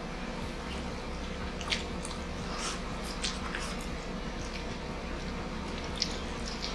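Close-up chewing and wet mouth sounds of people eating rice and grilled chicken by hand, with scattered small clicks and squishes. Under it runs the steady hum of a room air conditioner.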